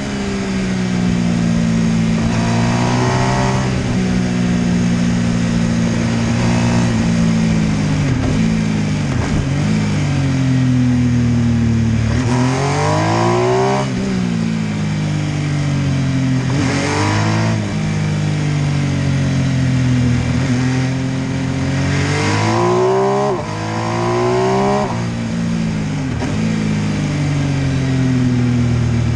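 MV Agusta F3 800's three-cylinder engine under a series of accelerations, its pitch climbing several times and then dropping back as the throttle closes.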